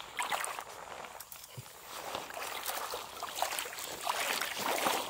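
Footsteps wading through shallow marsh water in rubber waders, with irregular sloshing splashes and the swish of tall grass brushing past.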